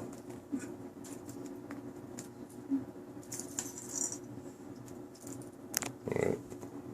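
Scattered light clicks and rattles of cats playing with toys, with a short louder sound about six seconds in.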